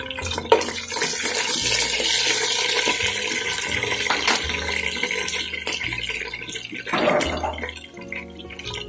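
Whole spices (bay leaves, cardamom, cloves and cinnamon) sizzling in hot oil in a pan. The sizzle is loudest in the first few seconds and dies down toward the end, with a brief swell near the end.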